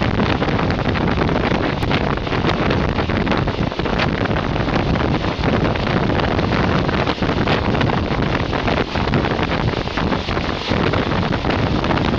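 Wind rushing over the microphone at the open window of a moving passenger train, over the train's steady running noise.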